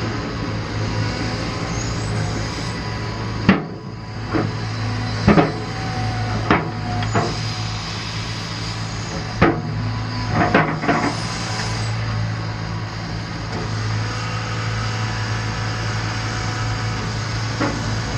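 Cat 320 excavator's diesel engine running steadily, with a series of sharp metallic knocks and clanks, several in the first half and more near the end, as the machine works.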